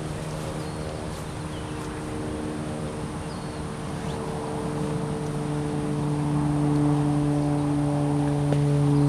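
Soft instrumental music of long held chords, swelling louder in the second half, with a few faint bird chirps.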